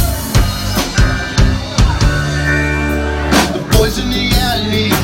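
Rock band playing an instrumental passage: a drum kit beats a steady pulse under guitar. A low note is held for about a second in the middle, and a cymbal crash follows.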